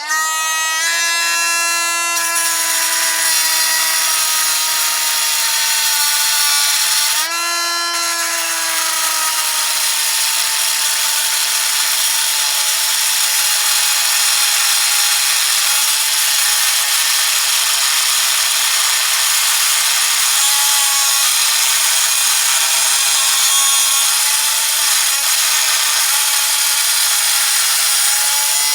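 Drill spinning an abrasive cutting wheel, grinding into a Master padlock: a steady motor whine over a harsh grinding hiss. About seven seconds in, the wheel briefly comes off the cut, so the motor speeds up and the pitch rises. It then bogs back down under load as the cut resumes.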